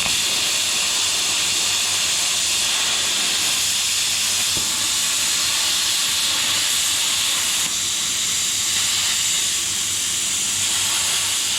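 Handheld plasma cutter cutting sheet steel, its arc hissing steadily. The hiss starts abruptly and cuts off near the end.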